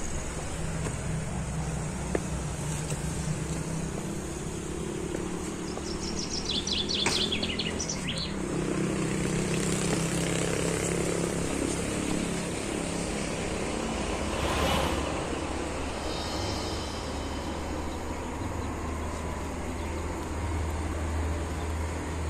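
Steady low drone of engine traffic, with a short high bird trill about seven seconds in and a brief swell of rushing noise around fifteen seconds.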